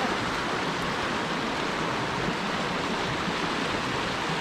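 Steady rush of flowing creek water over riffles, an even wash of noise with no breaks.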